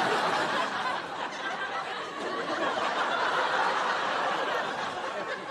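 Sitcom studio audience laughing together, loudest at the start and easing off somewhat toward the end.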